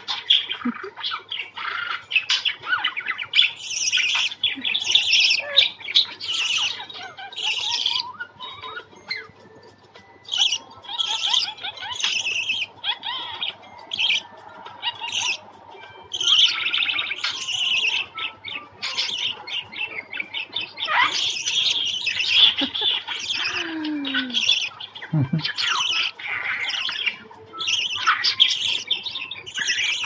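Budgerigars chattering and warbling: quick chirps and squawks in rapid bursts, partly from a talking-budgie video playing on a phone's speaker.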